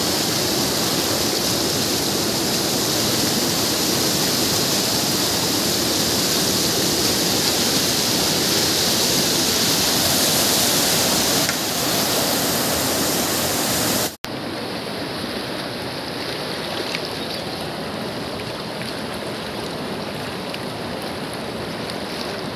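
River rapids rushing steadily over rocks. About fourteen seconds in the sound breaks off abruptly and returns as a softer, duller flow of the river current.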